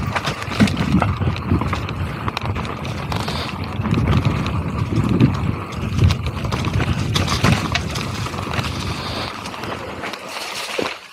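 Mountain bike riding fast down a dry dirt trail covered in dead leaves: steady tyre noise on dirt and leaves with frequent rattles and knocks from the bike over bumps. It gets quieter near the end.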